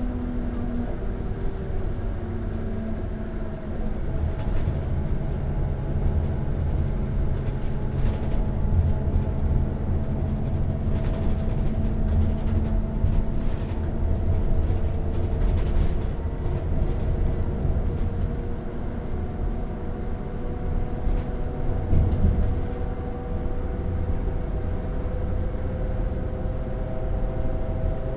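Bus interior while the bus is moving: the engine runs with a steady low rumble, and its note steps up and down a few times as the bus changes speed. Scattered rattles and clicks come from the cabin through the middle of the stretch.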